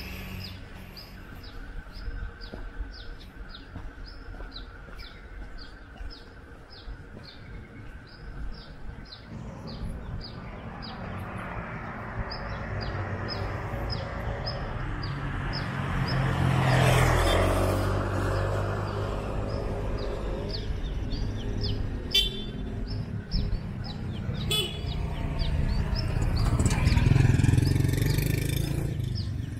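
Street traffic passing, with two louder vehicle passes around the middle and near the end and two short horn toots between them. A high chirp repeats steadily about twice a second throughout.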